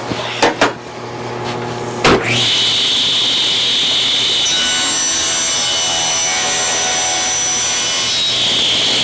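Power saw cutting through a board, ripping a strip off its side. There are a few knocks first, then a sharp knock about two seconds in as the blade bites, and then a loud, steady cutting noise that carries on to the end.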